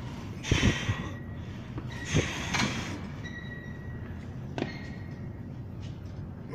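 Heavily loaded plate-loaded leg press being worked through reps: a low thud with a rush of noise about half a second in and again at about two seconds, then a sharper click later on.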